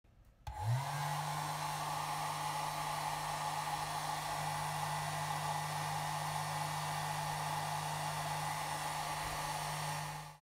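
Braun hand-held hair dryer switched on, its motor spinning up about half a second in, then blowing steadily with a low hum and a rush of air. It is switched off near the end.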